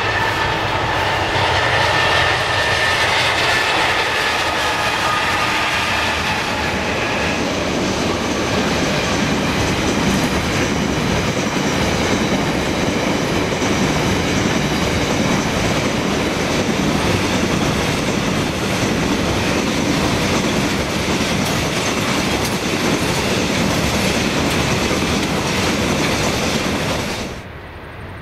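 A diesel-hauled coal train passing close by. The locomotive comes first, with steady tones over the first several seconds, then a long run of coal wagons rolls past with a steady rumble and the clickety-clack of wheels over the rail joints. The sound drops away sharply about a second before the end.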